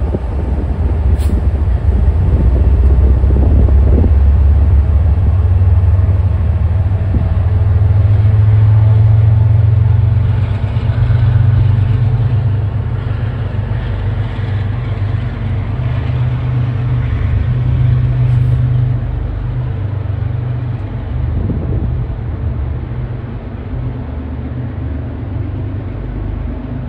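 Diesel engine of an MBTA HSP46 locomotive running under load as it pushes its commuter train away from the platform, a deep drone that steps up in pitch partway through and fades as the train recedes.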